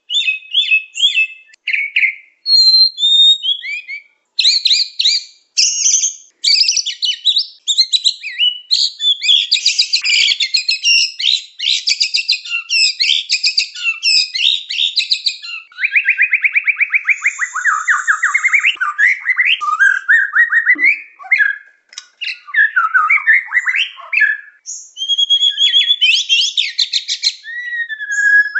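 White-rumped shama singing a long, varied song of clear whistles, fast trills and rapid chattering phrases, with only brief pauses.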